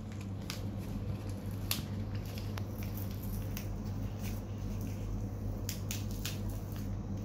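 Hands pulling at a crinkly toy-packaging wrapper to get it open, with scattered small crackles and clicks over a steady low hum.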